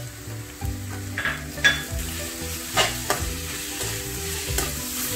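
Sliced onions with crushed green chilli, ginger and garlic sizzling in hot oil in a steel kadai, stirred with a spatula that scrapes and knocks against the pan several times.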